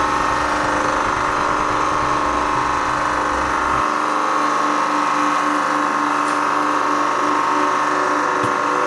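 Hydraulic press pump motor running with a steady hum and whine as it builds pressure on the bottle. The low rumble drops away about four seconds in, leaving the higher steady tones.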